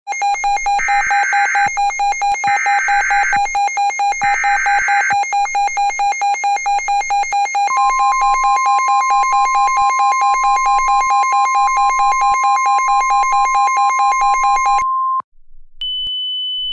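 Emergency Alert System-style alert tones. A rapidly pulsing alarm beep runs under three short bursts of SAME header data screech in the first five seconds. About eight seconds in, the steady 1050 Hz NOAA Weather Radio warning tone joins it, and both cut off about fifteen seconds in. A high steady tone starts just before the end.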